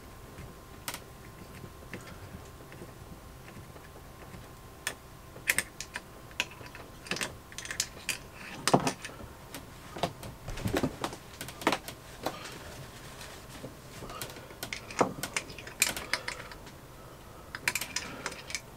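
Irregular light clicks and taps of hands working the plastic dipstick loose from the top of a Yanmar 2GM20's reduction gear, busiest through the middle and again near the end.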